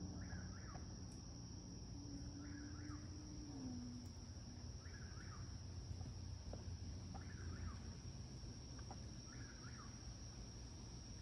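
Eastern whip-poor-will singing its repeated song, five calls about two seconds apart. Behind it run a steady high drone of night insects and a low rumble of distant traffic.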